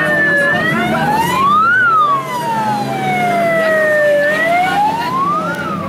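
Emergency-vehicle wail siren rising and falling in slow, even cycles, peaking about two seconds in and again near the end, over the engines of sport motorcycles rolling past at low revs.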